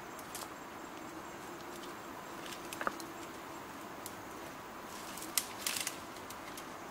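Dry twigs and brush crackling and snapping in scattered sharp clicks as they are handled and stepped through, with a quick cluster of cracks about five and a half seconds in and a brief squeak near three seconds. Underneath is a faint steady background hum.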